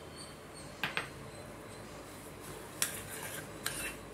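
Metal spoon knocking and scraping against a bowl as semolina is stirred into a thick paste: two light clicks about a second in, then a few scraping strokes near the end.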